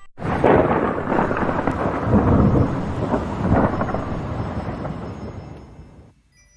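Thunderstorm sound effect: a long rumble of thunder with rain that starts suddenly, fades over a few seconds and cuts off abruptly near the end.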